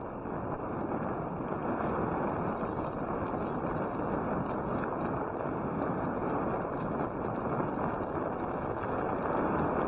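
Steady rushing noise of riding a bicycle on asphalt: wind on the bike-mounted camera's microphone and the tyres rolling, with faint irregular high clicks.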